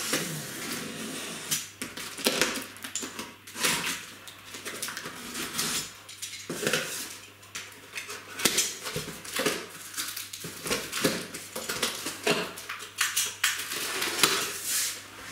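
Cardboard box being cut and opened by hand: a blade scraping through the packing tape and the cardboard flaps crackling and rustling, in a dense run of irregular scrapes and clicks.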